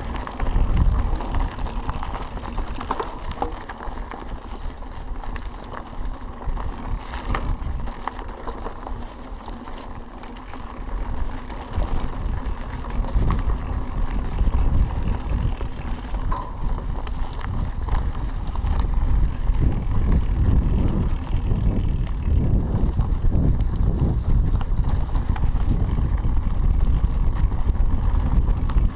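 Mountain bike ridden over a dirt and stony trail: low wind rumble on the microphone, with tyre crunch and small clicks and rattles from the bike. It gets louder and rougher in the second half.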